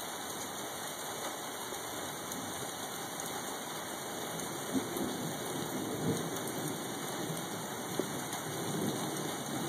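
Steady rain falling, with a low rumble of distant thunder swelling about halfway through and a few sharp ticks.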